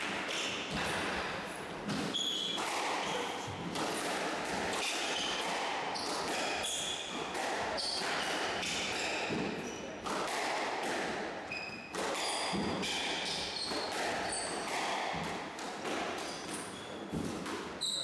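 Squash rally: the ball struck by rackets and smacking off the court walls in a string of sharp hits, with shoes squeaking on the wooden floor as the players move and lunge.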